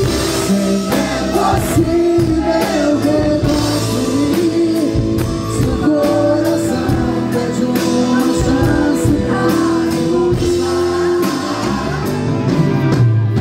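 Live rock band playing, with a male lead singer singing over drums and guitar through the stage PA.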